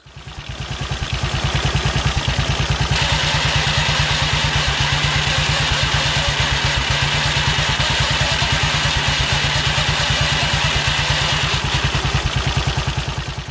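Matchless G3L WD's single-cylinder engine running on its stand with the primary chain case off, an even, fast firing beat. Over it sits a harsh mechanical noise that grows brighter about three seconds in: the transmission noise that the owner is tracing to the Burman CP gearbox.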